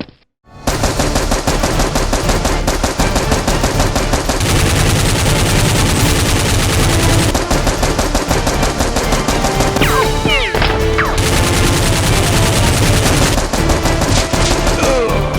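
Rapid automatic gunfire sound effects, a continuous dense stream of shots that starts after a brief silence, with a few short gliding whines about ten seconds in.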